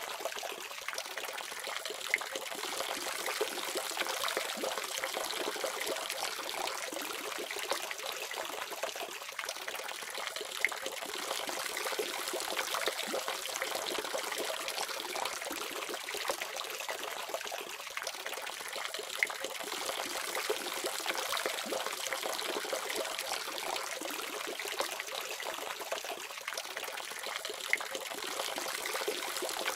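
Water running steadily from a faucet, a continuous splashing trickle with small scattered drips and splashes.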